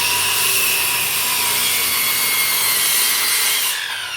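Circular saw cutting through a wooden board with a loud, steady whine. The cut stops about three and a half seconds in, and the blade's whine falls as it spins down.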